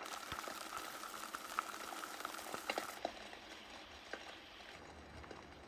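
Rain falling, a steady hiss with scattered drops ticking; the hiss thins abruptly about three seconds in.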